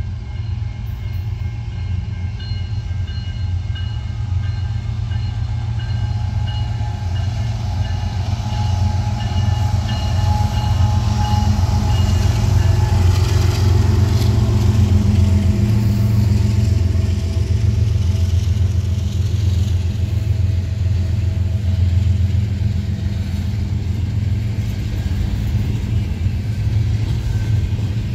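Two Canadian National diesel locomotives hauling a double-stack container train pass close by. Their engine rumble builds and is loudest about halfway through as they go past. After that comes the steady rolling of the container cars.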